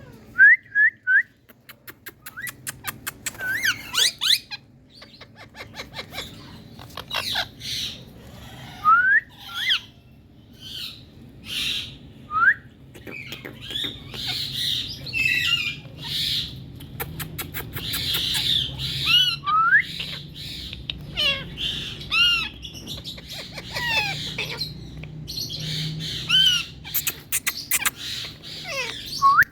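Indian ringneck parrots calling: a long run of short rising squawks and chirps, with harsh screeches and quick rattling trains of clicks between them.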